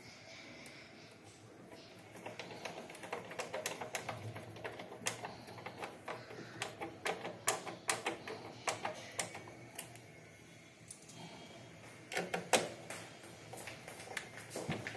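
Small screwdriver turning screws in the plastic casing of an APC Back-UPS, a run of quick irregular clicks and light scrapes, pausing briefly about ten seconds in before starting again.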